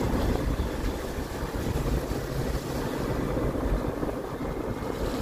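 Steady rumble of a moving vehicle on the road, with wind buffeting the microphone.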